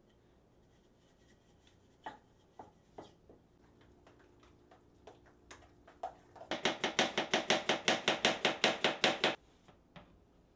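A utensil beating ricotta and pesto in a stainless-steel mixing bowl: a fast, even rhythm of about seven strokes a second for nearly three seconds. It follows a few scattered knocks and taps.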